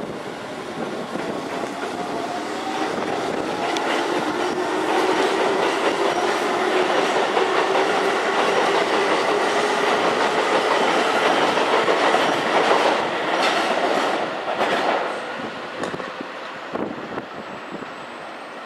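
Keihan electric commuter train running through the station: a steady rumble of wheels on rail with clacking over rail joints and a whine whose pitch slowly shifts. It builds to its loudest in the middle and fades toward the end.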